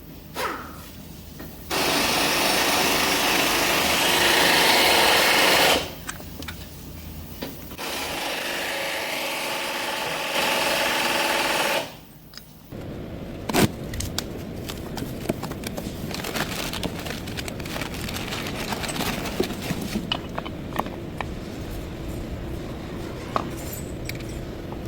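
A power tool runs in two bursts of about four seconds each, the second one quieter. After that comes a lower steady background with many sharp clicks and knocks.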